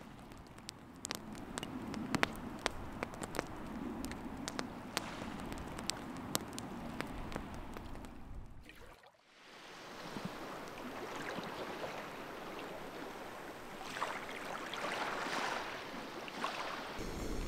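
Wood campfire crackling with many sharp pops. About nine seconds in it gives way to water lapping and trickling at the shore, which grows louder near the end.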